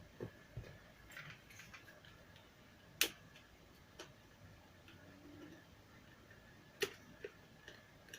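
Scattered sharp clicks and taps of small plastic and metal parts being handled while a portable Bluetooth speaker is taken apart, with the loudest click about three seconds in.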